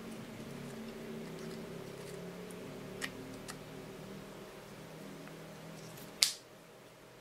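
Small parts of a spinning reel clicking faintly as they are handled, twice, then one sharp snap about six seconds in, over a steady low hum.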